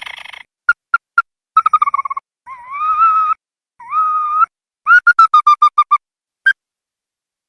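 Ruddy-breasted crake calling: sharp single notes, quick stuttering runs of short notes, and two longer upslurred whistled notes, ending in a fast series of about eight notes.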